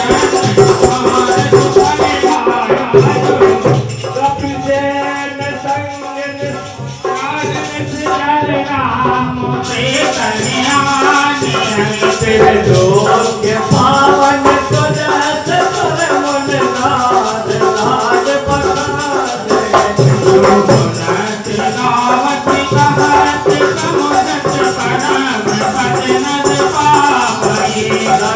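Devotional music with dholak drumming, jingling rattle-like percussion and a melody line.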